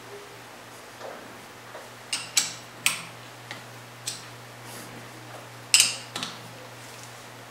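Irregular sharp metallic clicks and clacks as a lathe chuck is turned by hand, with a cluster of louder ones about six seconds in. A steady low hum runs underneath.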